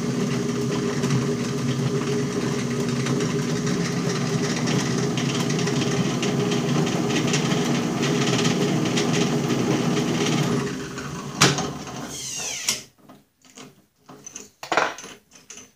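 Drill press running steadily while a center drill starts a small cross hole in a shift-lever shaft clamped in a vise. About eleven seconds in the motor is switched off with a click and winds down with a falling whine, followed by a few light knocks.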